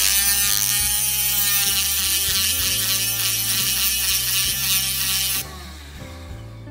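Mini rotary tool with a thin cut-off disc cutting into a die-cast metal toy car body: a loud, high grinding screech over the motor's whine, which stops sharply about five seconds in. Background music plays underneath.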